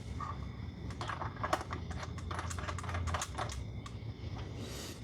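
A quick, irregular run of light clicks and taps, like small hardware or hand tools being handled, starting about a second in and lasting a couple of seconds, over a low hum.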